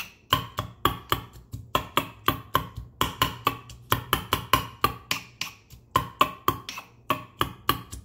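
Stainless steel muddler pounding cucumber chunks in a small stainless steel bowl: quick, steady knocks, about three or four a second, each with a short metallic ring.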